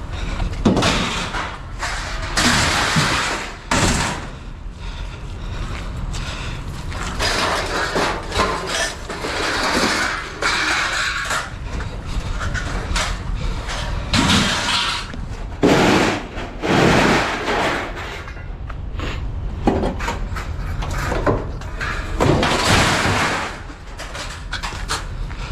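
Scrap being handled and loaded: an irregular run of clanks, bangs and scraping, with several louder knocks scattered throughout.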